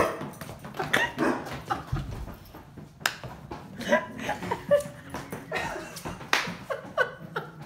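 A Vizsla wearing dog boots clattering and scuffing on a hardwood floor, with a few short high yips and whines.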